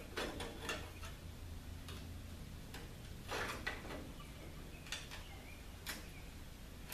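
Light, irregular clicks and scrapes of a cut sheet-metal patch being pressed and shifted against the car's body panel as it is test-fitted, with a longer scrape about three and a half seconds in.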